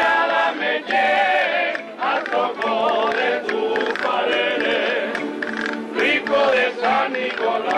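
A Canarian parranda folk group singing together in chorus over strummed guitars.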